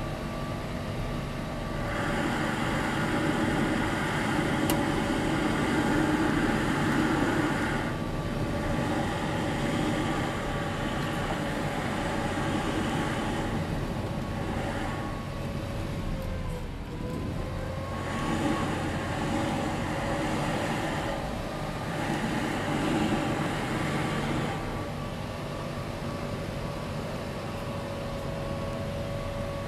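Gas-powered leaf blower running just outside the closed bus door, heard from inside the bus, its air blown along the door seam to hunt for a leak. Its steady engine tone dips in pitch and recovers about halfway through, and the rush of air swells and fades as the blower moves along the seam.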